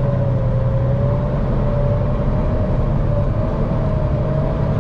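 Semi-truck's diesel engine running steadily under light load, heard from inside the cab: a continuous low drone with a thin, slightly wavering whine above it.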